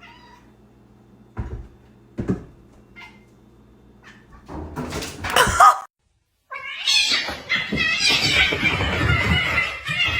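A cat gives a loud, drawn-out meow about five seconds in, after two soft thumps. After a short break, a longer, loud, noisy stretch of cat sound follows to the end.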